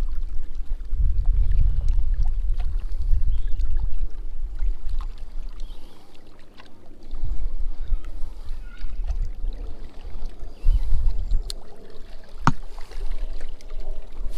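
Wind buffeting the microphone in gusts, a low rumble that eases off briefly about halfway, over water lapping at a rocky shoreline. A single sharp click near the end.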